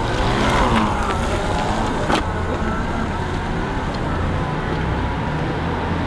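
Steady street noise with a motor vehicle's low hum, and a sharp click about two seconds in.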